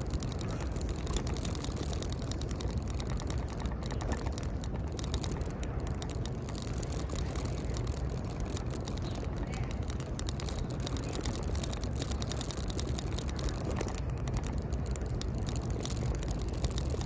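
Outdoor city street noise while walking: a steady low rumble with many faint clicks and ticks throughout.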